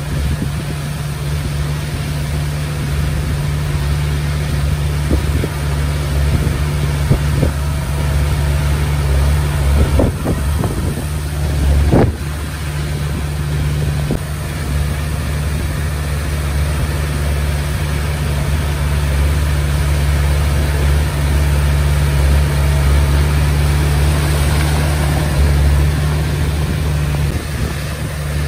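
Komatsu D20P bulldozer's diesel engine running steadily as it pushes stones. A few sharp clanks and knocks come around the middle, the loudest about twelve seconds in.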